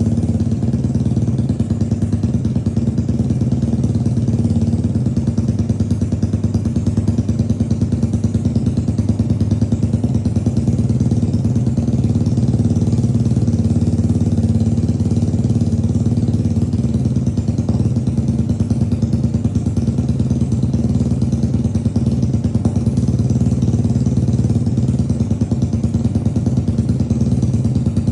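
Tuned Yamaha Aerox scooter's single-cylinder four-stroke engine idling steadily through an aftermarket exhaust while warming up.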